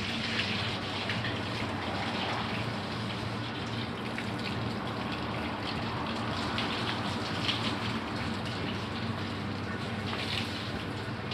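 Water running and splashing steadily as a floor or house is washed down, with a steady low hum underneath.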